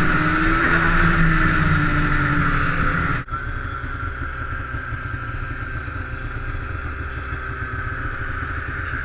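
Snowmobile engine running steadily at speed, heard from a distance. About three seconds in, the sound breaks off and changes abruptly to a quieter, steady engine drone.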